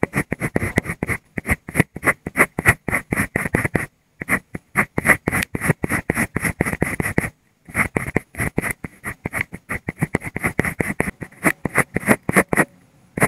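Mechanical pencil scratching on paper in quick, short hatching strokes, about five a second. The strokes come in runs with brief pauses about four seconds in and again about seven and a half seconds in.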